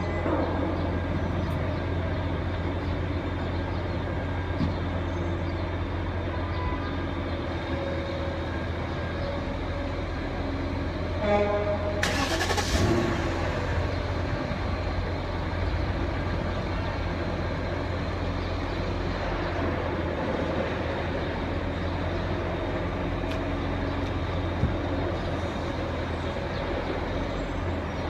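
BMW E38's engine running steadily, with a brief rush of noise about twelve seconds in and a couple of faint clicks.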